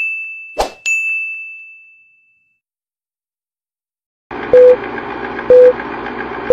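Subscribe-button animation sound effects: a bright ding ringing out, then a click and a second ding just under a second in, fading away by about two seconds. After a short silence, an old film-countdown sound effect begins about four seconds in: steady noise with a short beep once a second.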